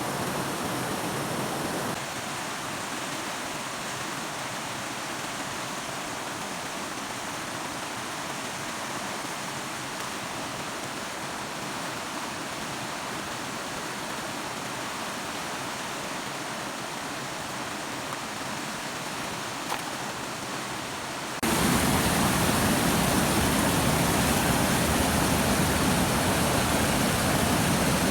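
Steady rushing water, like a stream or small waterfall. The sound shifts abruptly twice, and after about twenty seconds it becomes louder and deeper.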